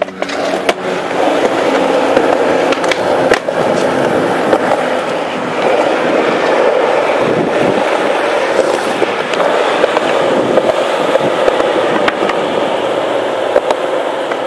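Skateboard wheels rolling on smooth concrete, a loud steady rumble, with a few sharp clicks from the board near the start.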